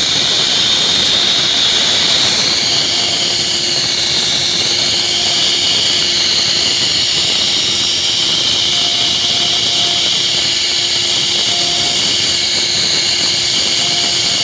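CNC router spindle running steadily as it cuts wood, a loud even whine and hiss, with a faint low tone coming and going.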